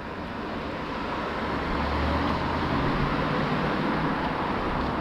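A motor vehicle running nearby: a rumble that grows louder over the first two seconds, then holds steady.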